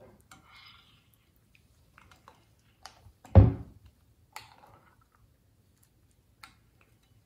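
Fingers pressing and poking thick slime in a glass bowl: sparse small sticky clicks and crackles, with one loud low thump about three and a half seconds in.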